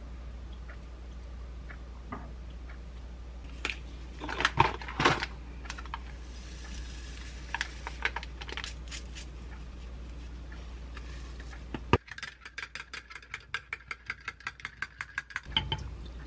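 Light clinks and knocks of chopsticks and dishes on a countertop, and a soft rustle as drink powder is poured from a stick packet into a glass of water. Then about three seconds of rapid, ringing clinks as the drink is stirred in the glass.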